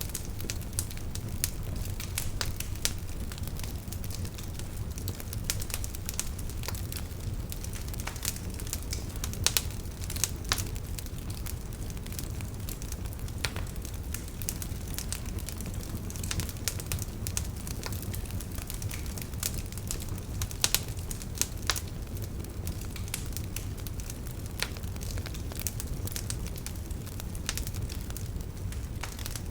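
Wood fire crackling steadily over a low rumble of flame, with irregular sharp pops and snaps, a few louder ones scattered through.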